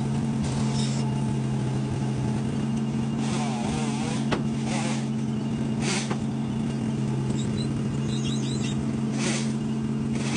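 An engine running steadily at one speed, with short hissing or scraping noises now and then and a single sharp click about four seconds in.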